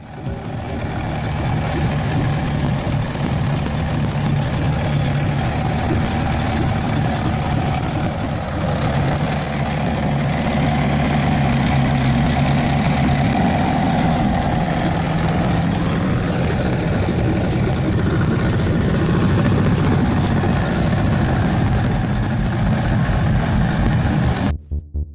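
Outboard motor running steadily, with a broad rush of noise over it; it cuts off suddenly near the end.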